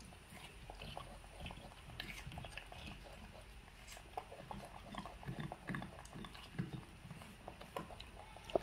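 Pet monkeys eating fruit: scattered small clicks, with a few short low animal sounds about five to six seconds in. A single sharp knock comes just before the end.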